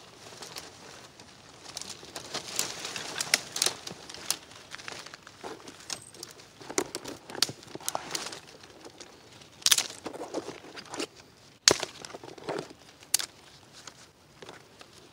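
Small dry twigs snapped off branches by hand into kindling: a string of sharp, irregular cracks with the rustle of the twiggy branches between them.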